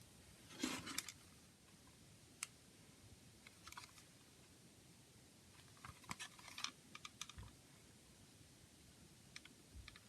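Hands handling a CD and its case: scattered light clicks and brief rustles, quiet overall, with one short rustle just under a second in and a cluster of clicks about six seconds in.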